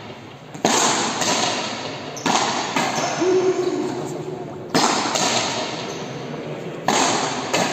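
Frontenis rally in an indoor fronton: the rubber ball cracking off rackets and the front wall, sharp hits every second or two. Each hit rings on in the big walled hall's echo.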